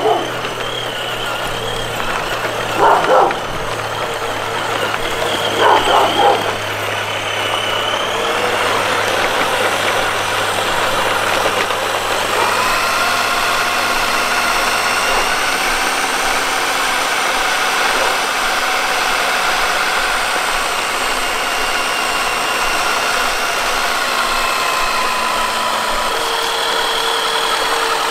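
Steady whine of an RC crawler's electric motor and geared drivetrain as it tows a train of three toy trucks, its pitch shifting a couple of times. A dog barks in short bursts three times in the first seven seconds.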